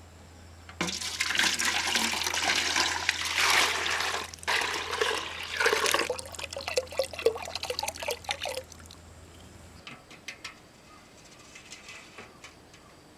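Water running and gurgling, starting about a second in and stopping after about eight seconds, followed by a few faint ticks.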